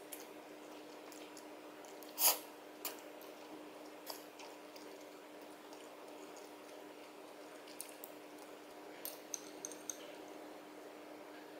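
Quiet eating sounds over a faint steady hum: a few soft mouth and utensil noises early on, then a quick cluster of light clicks near the end as chopsticks touch the dishes.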